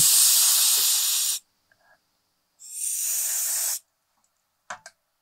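Two bursts of hissing spray from an aerosol can. The first is loud and stops about a second and a half in; the second, quieter one lasts about a second. Two small clicks follow near the end.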